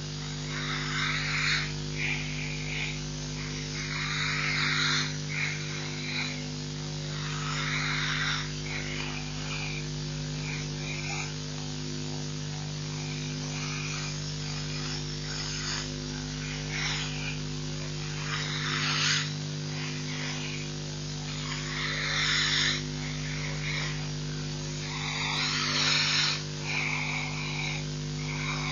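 An old African buffalo breathing with difficulty: short, harsh, noisy breaths come about every two seconds, irregularly, the sign of its breathing problem. A steady electrical hum runs underneath.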